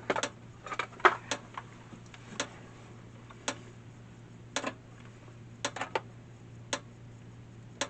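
Repaired electric fence charger firing: a sharp tick with each pulse, about once a second, showing it is working again. A few extra clicks come close together at the start, over a low steady hum.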